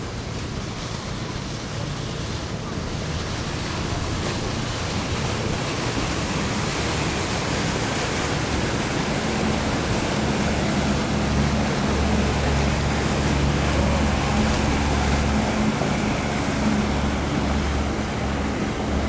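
Wind blowing across the microphone over a steady wash of water. A low hum comes and goes underneath, stronger from about six seconds in.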